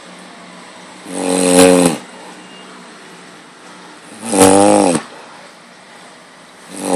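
Loud snoring: two long snores about three seconds apart, each lasting about a second with its pitch dropping at the end, and a third beginning right at the end.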